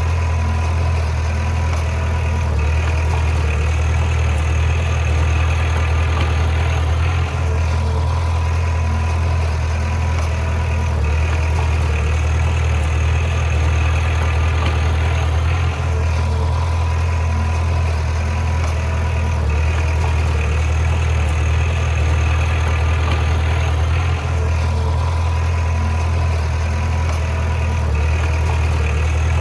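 Heavy diesel engine of a bulldozer running steadily, its note shifting in a repeating cycle about every eight seconds.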